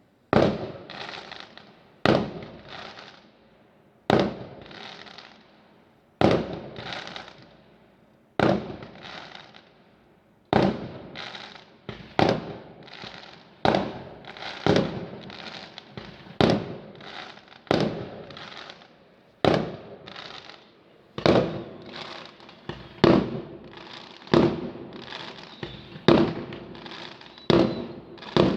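Fireworks going off: a long string of sharp bangs, each trailing away in crackle and echo. They come about every two seconds at first and closer together in the second half.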